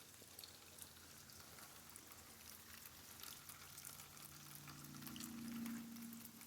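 Faint crackling and ticking of rainwater draining and soaking into saturated ground. A low droning hum swells near the end and stops suddenly.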